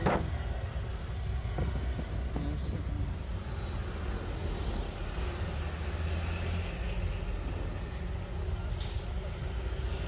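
Steady low rumble of a motor vehicle, with a few faint light clicks.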